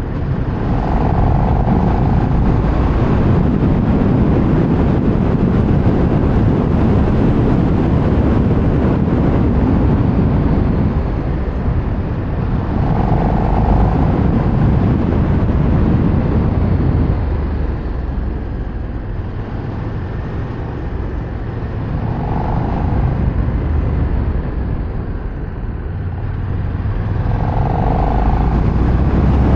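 KTM 1390 Super Duke R's V-twin engine running under way, mixed with wind rush over the microphone. It eases off for a stretch in the second half and picks up again near the end.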